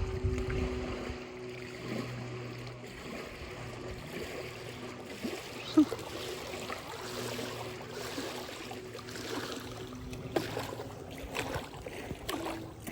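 Small boat motor running steadily over the sound of moving water, with a single sharp knock about six seconds in.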